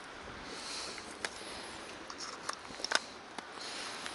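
Handheld butane gas torch hissing as its flame is played on dry grass tinder, with the catching grass and twigs giving several sharp crackles.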